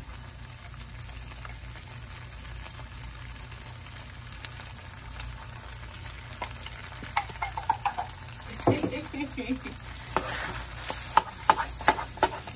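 Ground beef filling frying in a nonstick skillet with a steady sizzle. From about seven seconds in, a slotted metal spoon stirs it, scraping and tapping against the pan in quick clusters of clicks and knocks.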